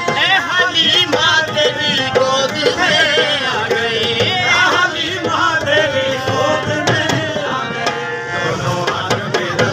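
A man sings a devotional naat in qawwali style to his own portable harmonium, with other men's voices joining in and percussion keeping a steady beat.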